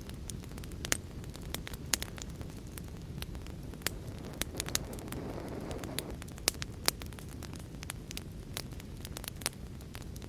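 Wood fire burning: a steady low rumble of flames with frequent sharp crackles and pops, a few of them loud. A short rushing swell rises and fades near the middle.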